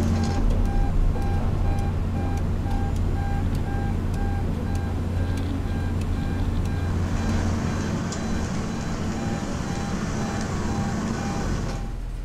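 Diesel engines of a Komatsu excavator and a rotary drilling rig running with a steady hum, while a machine's warning alarm beeps in an even, repeating pattern. A hiss joins about halfway, and the beeping stops near the end.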